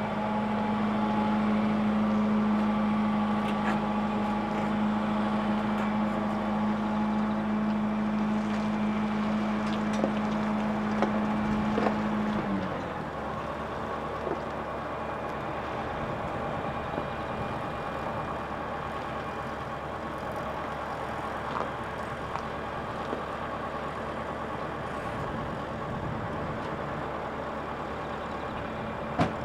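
Heavy diesel engine running steadily at raised revs, then dropping to a lower, quieter idle about twelve seconds in.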